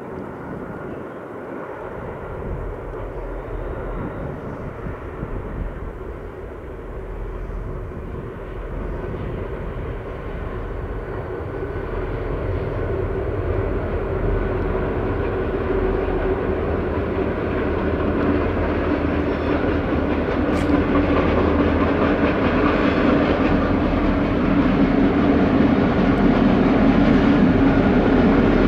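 Three EMD SD40-2 diesel-electric locomotives, each with a 16-cylinder two-stroke diesel, running as they lead a loaded ballast train. They sound as a deep engine hum with a steady drone that grows steadily louder as the train draws closer.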